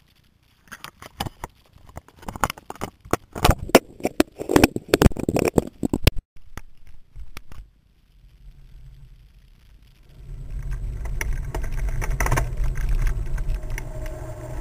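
Clattering knocks and rattles as a mountain bike with a GoPro camera mounted on its front fork is handled and moved. From about ten seconds in comes a steady low rumble of the bike rolling over brick pavement, with rattling on top.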